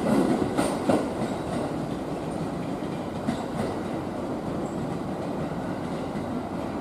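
Steel wheels of an unpowered JR East E231 series 800 electric train, towed as a delivery train, rolling along the track. Two clacks over rail joints in the first second, then a steady rolling rumble.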